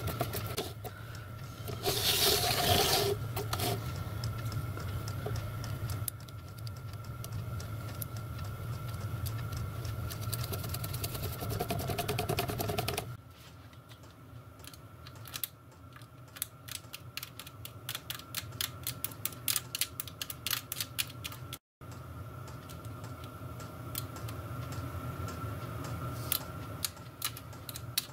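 Steady low hum with a brief louder rustle about two seconds in. From about halfway on come rapid light metallic clicks and ticks as small nuts are fitted by hand and with a small spanner onto the studs inside a sheet-metal water tank.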